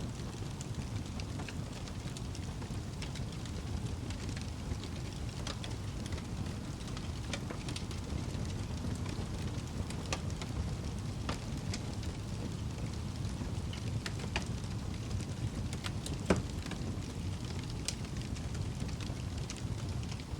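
Wood fire crackling in a fireplace: a steady low rumble of flames with scattered sharp pops and snaps, one louder pop about 16 seconds in.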